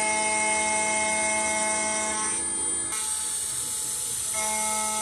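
CNC spindle at 16,000 RPM driving an indexable end mill with steel-cutting inserts as it faces an aluminum block, taking a 0.1–0.2 mm cut: a steady whine made of several tones. About three seconds in, the tones drop out to a hiss for about a second, then the whine returns.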